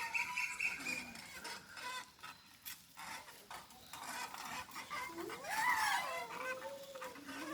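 Rain pattering as many fine ticks and a hiss, with one drawn-out call that rises and then falls about five seconds in.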